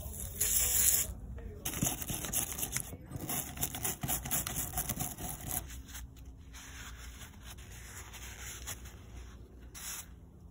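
Cloth rubbing and scrubbing on small metal bicycle headset bearing cups as they are wiped clean of degreaser, with scuffing and light clicks. A short loud hiss comes about half a second in; the rubbing grows quieter and more even after about six seconds.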